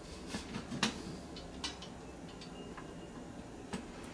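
Faint, irregular metal clicks and ticks as screws are threaded by hand into the joints of a metal-tube stand frame, the sharpest about a second in.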